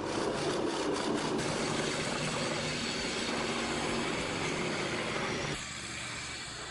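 A wood-cutting machine running: a steady, rough grinding noise that drops off and changes about five and a half seconds in.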